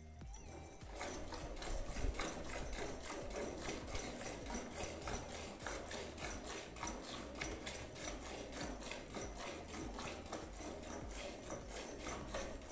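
Milk squirting from a cow's teats into a metal bucket as the cow is milked by hand, in short regular squirts at about three a second.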